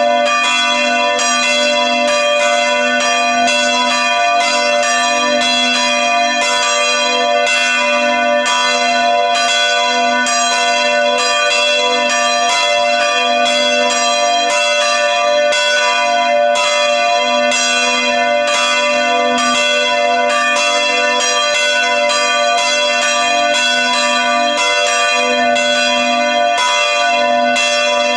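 Several church bells ringing together in a church bell tower, their strikes overlapping a few times a second without pause.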